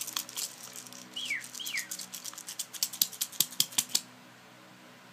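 Crinkle paper being crumpled and shaken in quick, irregular crackles that stop suddenly about four seconds in, with two short high falling chirps about a second in.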